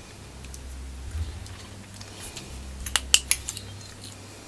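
Small, sharp metallic clicks and taps of fine repair tools against the parts of an opened iPhone during reassembly, with a quick cluster of three louder clicks about three seconds in, over a faint low hum.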